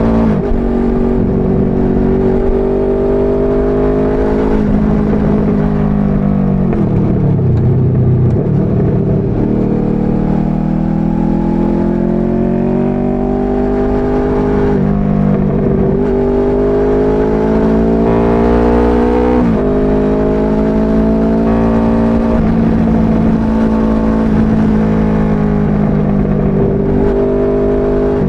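Motorboat engine running under way, its pitch dropping sharply and then climbing back several times as the revs change, with the deepest dip about a quarter of the way in.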